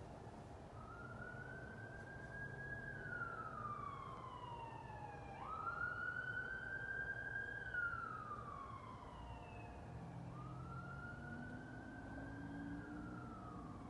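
A distant siren wailing in slow rising and falling sweeps, three cycles in all, heard faintly.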